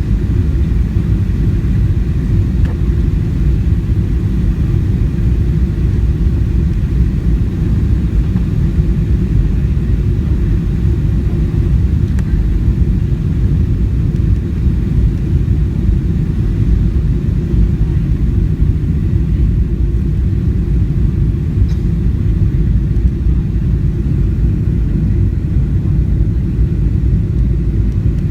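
Steady low rumble of cabin noise inside a Boeing 737-700 on approach, from airflow over the airframe and the CFM56 turbofan engines, with flaps extending for landing.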